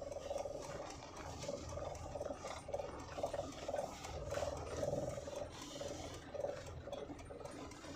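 Small car's engine idling as the car creeps backward in reverse gear with the clutch fully released and no accelerator, heard from inside the cabin: a low rumble with a wavering hum.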